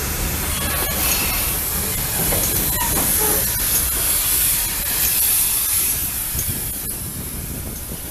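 Steam locomotive hissing steam over a steady low rumble, with a few faint clicks.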